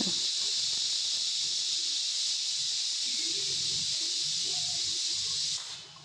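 Pressure cooker whistle going off, a loud steady high-pitched hiss of escaping steam that cuts off suddenly near the end. It marks the cooker's first whistle while the moong dal cooks under pressure.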